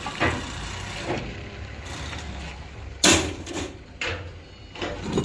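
Scrap metal being moved around in the back of a van, making a series of clanks and knocks, the loudest about three seconds in, over a low steady rumble.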